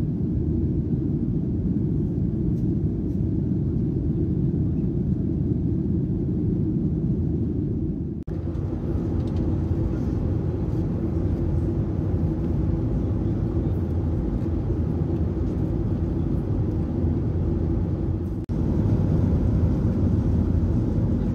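Steady low rumble inside the cabin of a Boeing 737-800: its CFM56-7B engines and the airflow. The sound breaks off abruptly twice, about eight seconds in and near the end, and is a little louder after the second break.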